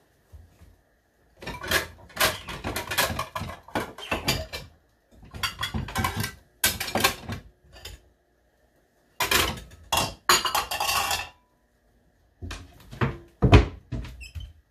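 Kitchen utensils and dishes clattering in several separate bursts as they are handled and rummaged through at the counter. Near the end there is a single heavy knock, the loudest sound.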